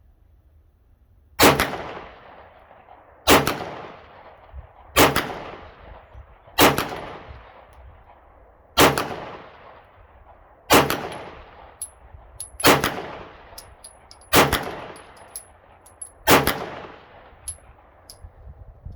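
Glock 17 Gen 5 9mm pistol firing slow aimed shots, nine in all, about one every two seconds, each trailing off in an echo. Faint clinks sound between the later shots.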